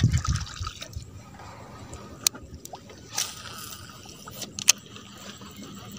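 Small fishing boat on still water: soft water splashing and sloshing, a brief rush of noise just past the middle, and a few sharp knocks, one about two seconds in and two close together near the end.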